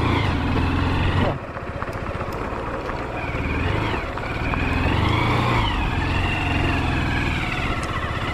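Honda Shine 125's single-cylinder engine running under the rider. It drops quieter a little over a second in, then its pitch rises and falls as the throttle changes.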